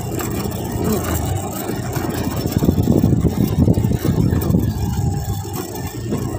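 Motorcycle engine running while the bike rides over a rough gravel and stone track, a steady low rumble of engine and road noise.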